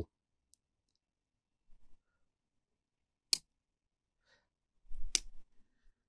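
Victorinox Bantam Swiss Army knife's blade and tool being folded shut, each snapping closed with a sharp click: one about three seconds in, another about five seconds in, with faint handling rustle around them.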